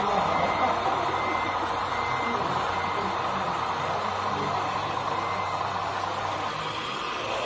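Reversing beeper sounding at a steady pace, about two beeps a second, over a steady low engine hum, as from a model truck's or excavator's sound unit. The beeps fade out about three seconds in, and the hum stops near the end.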